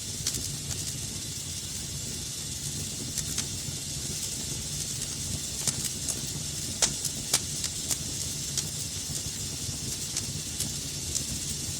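Wood fire burning in a fireplace: a steady hiss and low rumble with scattered sharp crackles and pops, two louder pops about seven seconds in.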